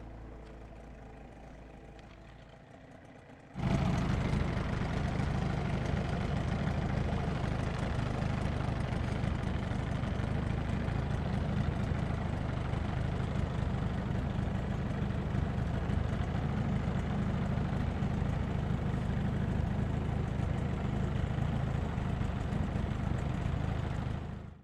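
Small outboard motor running at a steady speed on an aluminum boat. It comes in suddenly about three and a half seconds in and cuts off abruptly at the very end.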